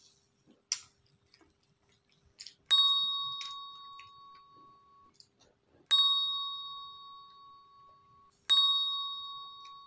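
Notification-style ding sound effect of a subscribe-button animation, sounding three times about three seconds apart, each a clear bell tone that rings on and fades away. A few faint clicks come before the first ding.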